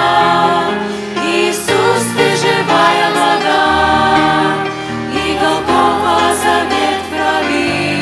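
A small mixed group of men, women and children singing a Russian-language Christian hymn together into microphones, several voices in unison over held low notes.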